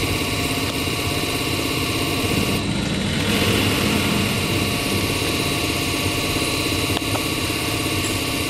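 Common rail injector test bench running a six-injector test: a steady mechanical running noise from its motor-driven high-pressure pump and injectors under rail pressure. The sound shifts briefly about three seconds in.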